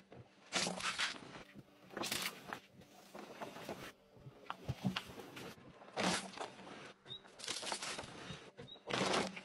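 A car tyre rolling over and crushing small objects: a plastic Tic Tac box, gummy worms on a paper plate, a styrofoam block. A string of short crunching and crackling noises, one every second or so.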